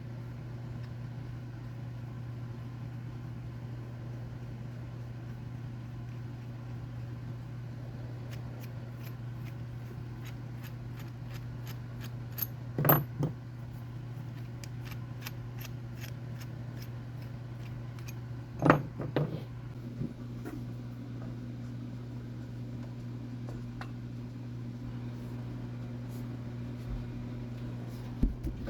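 A steady low electrical-sounding hum, broken twice by brief sharp clatters about six seconds apart.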